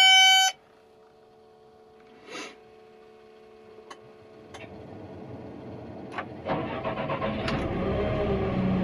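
Caterpillar 316E excavator starting: a loud key-on warning beep ends half a second in, and a few light clicks follow. The diesel engine catches about six and a half seconds in and settles into a steady idle, running cold in warm-up mode.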